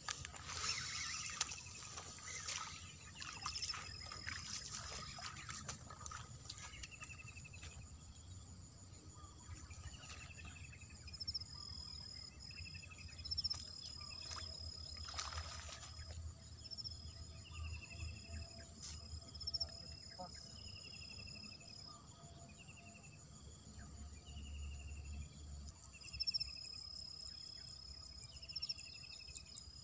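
Rural morning ambience: a bird gives a short descending call about once a second, with runs of short higher notes and a steady insect drone underneath. There are occasional brief rustles, loudest about 15 seconds in.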